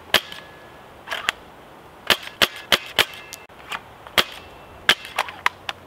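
3D-printed spring-powered airsoft rifle being fired and worked: a quick, irregular series of sharp clacks, about a dozen in six seconds. A compressed spring drives a modified bicycle-pump piston to blow the BBs down the barrel.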